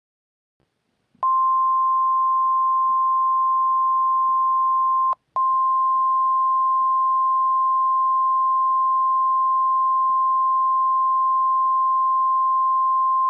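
NOAA Weather Radio warning alarm tone: a loud, steady single tone near 1050 Hz that starts about a second in. It breaks off with a click for a moment about five seconds in, then resumes. The tone signals that a warning broadcast is about to follow.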